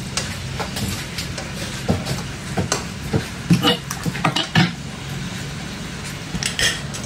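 Meat cleaver chopping raw chicken on a wooden chopping board: a run of irregular sharp knocks, bunched between about two and five seconds in, with one more near the end, over a steady low hum.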